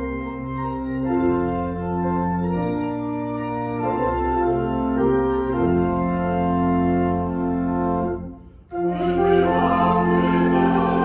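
Organ playing slow sustained chords that change every second or two. A little past eight seconds in it breaks off briefly, then a fuller, brighter passage starts.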